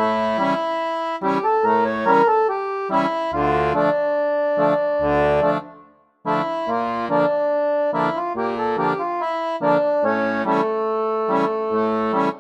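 Background music: a tune of short rhythmic chords over bass notes, which stops briefly about halfway through and starts again.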